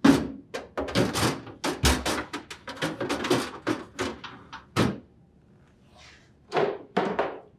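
Clear plastic crisper drawers of an LG refrigerator being slid along their tracks and pushed shut: a quick run of plastic clacks and knocks for about five seconds, then a few more near the end.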